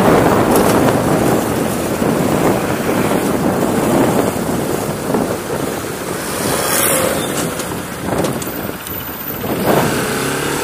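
Wind rushing over a helmet camera's microphone on a moving Bajaj Pulsar RS200 motorcycle, with the bike's single-cylinder engine running underneath.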